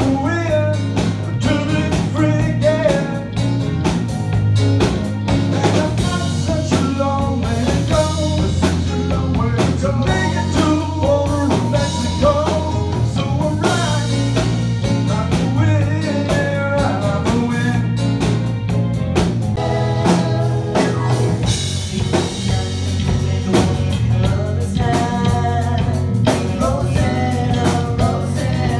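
A live band playing a yacht rock song: electric bass, keyboard and drum kit, with a sung vocal over them.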